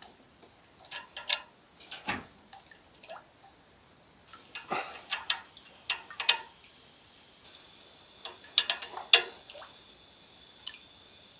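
Irregular clicks and taps of small metal hardware being handled as a nut and bolt are fitted on a tank level sensor, in scattered clusters with short ringing.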